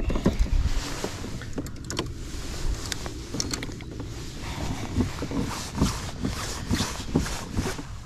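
Handling of a baitcasting rod and reel on a kayak: irregular clicks and knocks over a steady low rumble.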